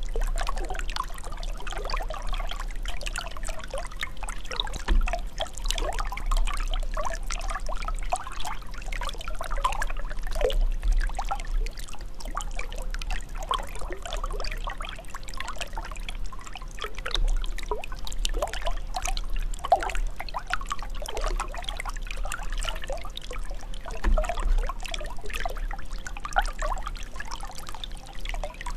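Running water trickling and gurgling steadily as a dense, irregular patter of small bubbling splashes over a low rumble.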